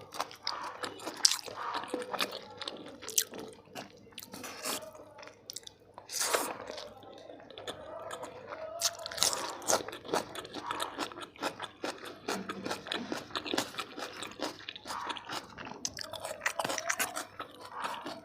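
Close-up chewing of a mouthful of biryani: repeated wet mouth clicks and crunchy bites, in an irregular run of short sharp sounds.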